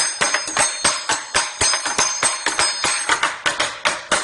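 Metal spoons drumming on the silverware in a kitchen cutlery drawer: a quick, steady rhythm of clinking strikes, about four a second, with the metal ringing.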